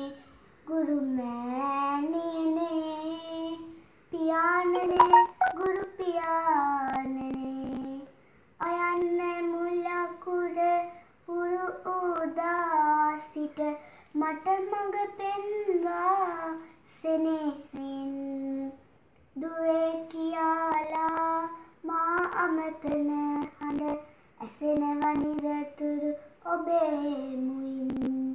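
A young girl singing a Sinhala song unaccompanied, in phrases of two to four seconds with short breaths between them.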